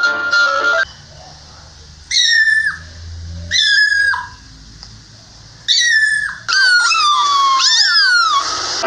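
Very young kitten meowing: high, thin mews that fall in pitch, three single calls a second or two apart, then a quicker string of mews near the end. Plucked-string music cuts off within the first second.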